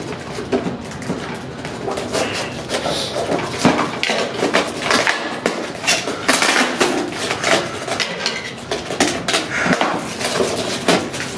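Unboxing handling noise: clear plastic wrapping crinkling and a cardboard box rustling while its packaging and tape are cut with scissors. It is a dense, irregular run of crackles and snips.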